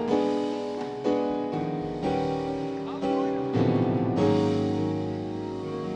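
Piano or keyboard playing slow, held chords that change every second or so.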